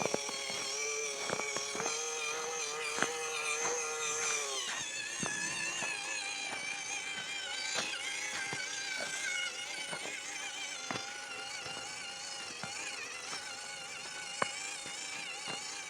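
Electric motor and gearbox of a WPL C84 RC crawler whining as it drives, the pitch shifting about four and a half seconds in, with scattered sharp clicks.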